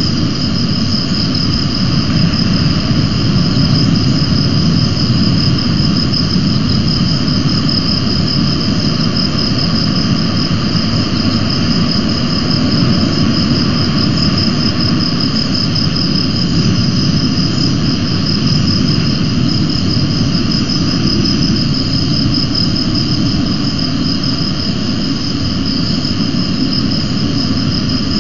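A continuous high, rapidly pulsing insect trill like crickets chirping, over a steady low rumble of wind on the microphone.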